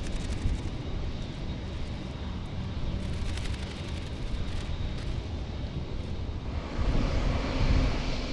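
Jet engines of a Boeing 747-8F freighter at taxi power as it taxis past: a steady rumble that grows louder about seven seconds in.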